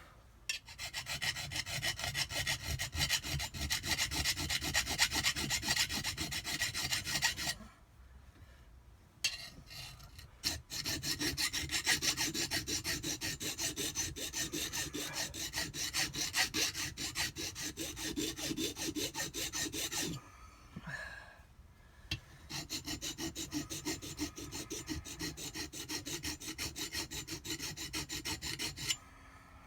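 Hand file rasping in quick, even back-and-forth strokes over the vane edges of a Kawasaki JS800 jet-pump impeller, taking off burrs that have furled over the edges. The filing stops twice for about two seconds: roughly a quarter of the way in and again about two-thirds in.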